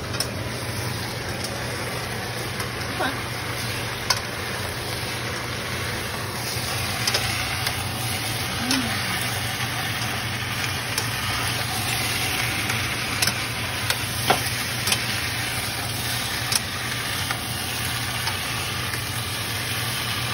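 Fried chicken pieces and sauce sizzling in a nonstick skillet as they are stirred with a plastic spatula, with a scatter of sharp clicks from the spatula knocking against the pan. A low steady hum runs underneath.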